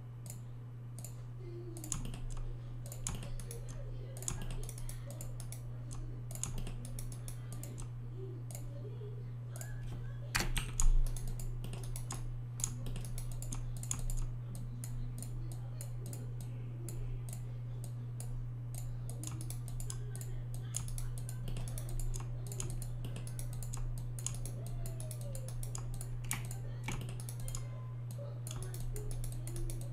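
Computer keyboard and mouse clicking irregularly as a 3D modeller works, over a steady low electrical hum, with one louder knock about 11 seconds in.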